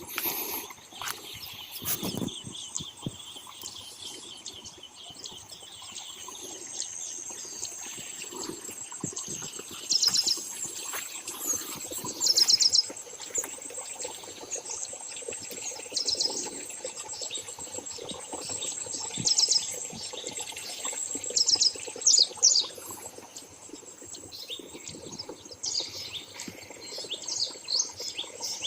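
Birds chirping in short, high, rapid trills every few seconds, over a steady high-pitched insect drone.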